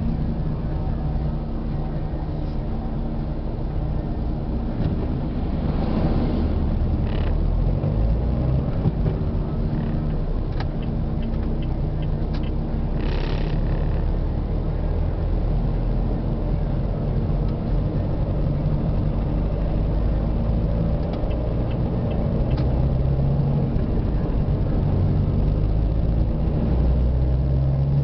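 Car driving at a steady speed on a highway, heard from inside the cabin: a steady low rumble of engine and tyre noise, with a brief hiss about halfway through.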